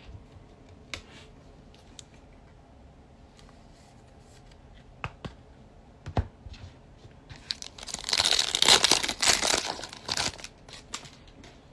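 A 2020-21 Panini Select Basketball card pack's shiny foil wrapper being torn open by hand, a loud crinkling rip lasting about three seconds, starting about seven and a half seconds in. Before it, a few faint clicks of cards being handled.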